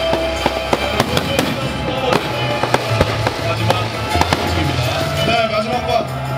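Fireworks going off in a display: repeated sharp bangs of shell bursts, a few a second, over music playing throughout.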